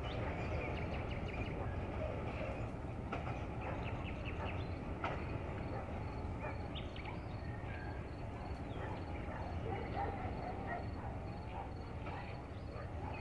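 Birds chirping and calling in open countryside at dusk over a steady low rumble, with a faint high, evenly pulsing trill throughout.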